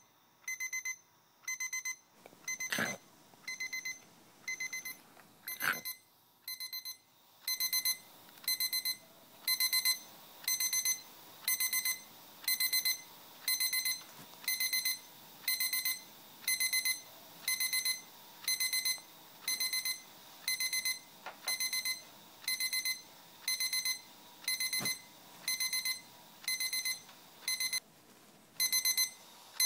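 Sharp quartz alarm clock beeping: bursts of rapid high beeps repeating about once a second, short and quieter at first, then longer and louder from about a quarter of the way in. Two brief thumps sound among the early beeps.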